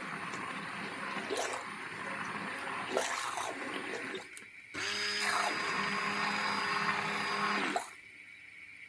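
Electric stick blender beating raw eggs in a bowl: the motor runs with a wet churning sound, stops briefly about four seconds in, then runs again with a steady whine and cuts off about a second before the end.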